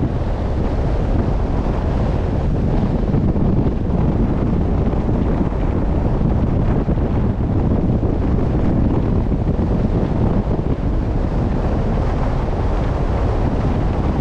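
Wind buffeting the microphone at sea, a steady low rumble with the wash of the sea under it.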